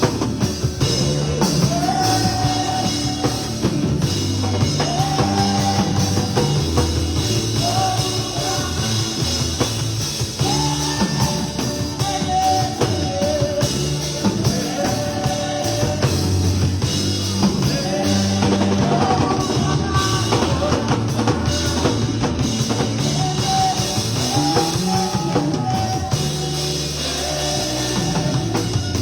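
Band music with singing over a drum kit and guitar, loud and steady with a driving beat.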